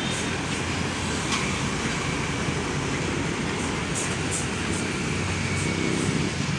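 A heavy diesel tractor unit hauling a loaded shipping container on a skeletal trailer drives slowly past: steady engine note with tyre and road noise, and a few light clicks from the rig.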